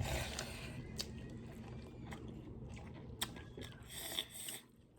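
Close-up eating sounds: a person chewing and biting into a pork meal, with a few scattered sharp mouth clicks and a brief noisier patch of chewing near the end.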